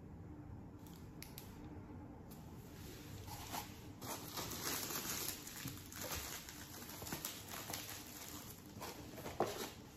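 Paper and cardboard rustling as hands sort through a gift box of cards and envelopes, with a few light clicks at first and steadier rustling from about three seconds in.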